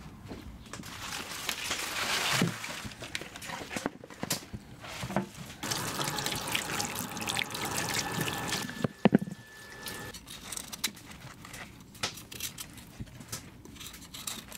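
Kitchen tap running and splashing into a stainless-steel sink as carrots and beets are rinsed under it by hand, with small clatters and drips. There is a sharp knock about nine seconds in, and a thin high whistle for about two seconds just before it.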